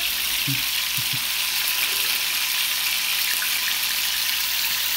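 Diced chicken pieces sizzling steadily in hot oil in a frying pan.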